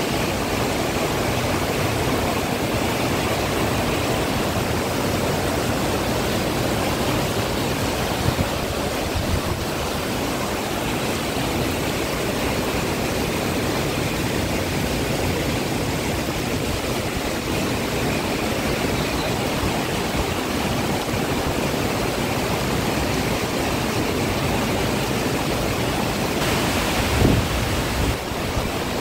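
Heavy downpour of wind-driven rain: a steady, even rush of rain. A brief thump near the end is the loudest moment.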